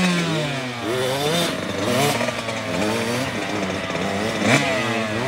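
Dirt bike engine revving up and down under load on a steep loose-dirt climb, its pitch rising and falling over and over as the clutch is slipped.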